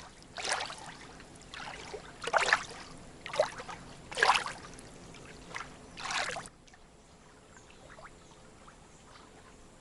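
Water splashing in a series of six swishes, roughly one a second, cutting off abruptly about six and a half seconds in, then a faint quiet background.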